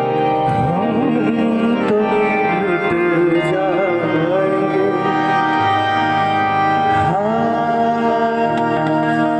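Live ghazal music: a male voice singing an ornamented line over sustained harmonium and keyboard chords, with tabla.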